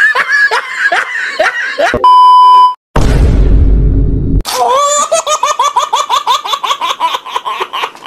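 Laughter sound effects: a laugh of quick pulses, then a steady beep of under a second about two seconds in, a short burst of noise, and from about four and a half seconds a long, high-pitched laugh in quick rhythmic pulses.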